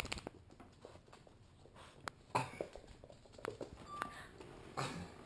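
Two young pit bull-type dogs scuffling on a hardwood floor: claws clicking and pattering on the boards, with a few sharper knocks and two louder scuffles, one about halfway through and one near the end.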